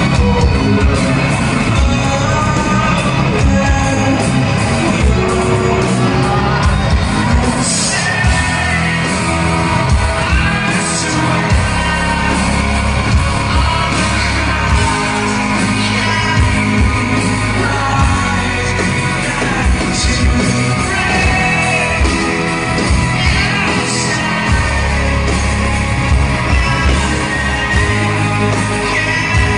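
A live band playing an electronic rock song, with a male voice singing over heavy, pulsing bass and drums. It is heard from within the audience in a large hall.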